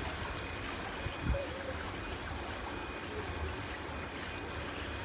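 Steady background noise, a low rumble under an even hiss, with one short low thump a little over a second in.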